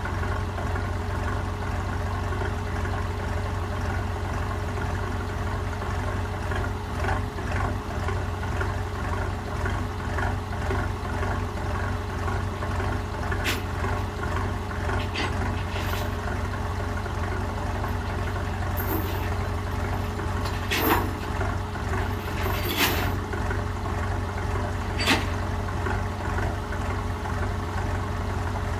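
Heavy diesel engine idling steadily. Several short, sharp hisses of air in the second half, the loudest about two-thirds of the way in.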